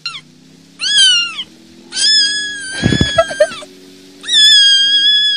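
A cat meowing: four high-pitched meows, the first brief, the last two long and drawn out. There is a short low rumble about three seconds in.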